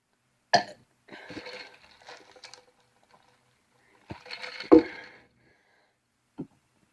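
A man burping: a short burp about half a second in and a louder one near five seconds, with quieter throaty noises between them.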